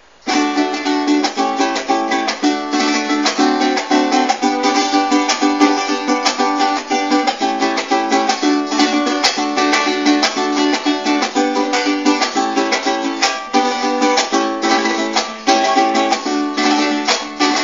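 Venezuelan cuatro strummed in a fast, steady rhythm of chords: the instrumental introduction to a song.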